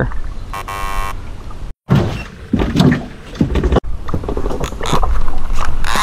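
Wind rumble on the microphone and handling knocks and thuds as a fishing rod is taken up after a bite, with a brief buzz about half a second in.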